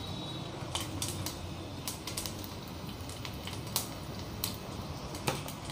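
Tempering spices frying in hot oil in a small pan: irregular crackles and pops from mustard seeds, urad dal, shallots, dried red chillies and curry leaves, over a low steady hum.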